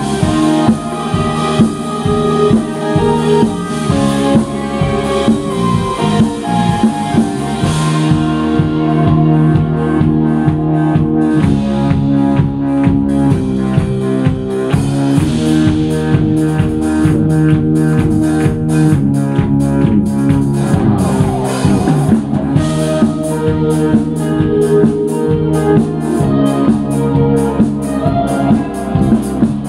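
Live rock band playing an instrumental passage on electric guitars, drum kit and keyboard, with the drum beat growing busier about halfway through.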